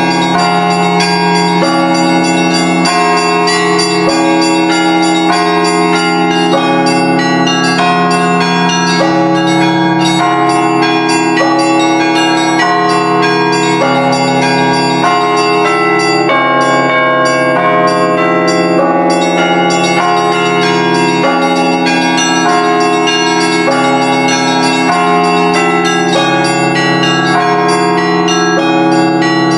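Orthodox church bells ringing in a continuous peal. The low bells hum steadily under quick, repeated strikes of smaller, higher-pitched bells.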